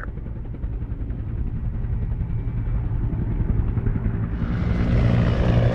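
Helicopter in flight: a steady low drone of rotor and engine that grows louder and fuller about four seconds in.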